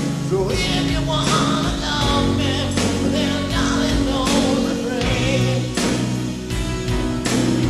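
Live rock band playing a piano ballad: a male lead singer sings over grand piano and full band, with repeated sharp hits throughout.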